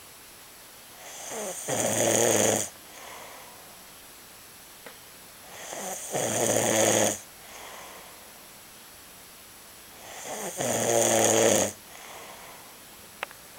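Loud snoring: three long, buzzing snores about four and a half seconds apart, with softer breathing between them.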